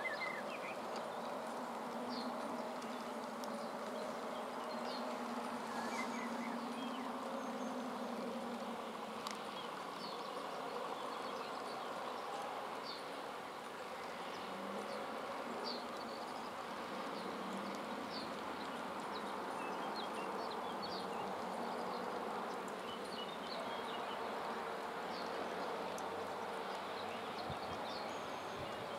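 Outdoor meadow ambience: flying insects buzzing past, their hum wavering in pitch as they come and go, over a steady hiss, with scattered short high bird chirps throughout.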